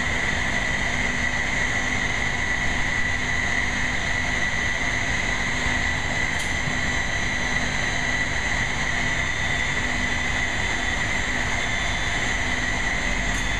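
Steady machinery noise with a constant high-pitched whine and a low hum underneath.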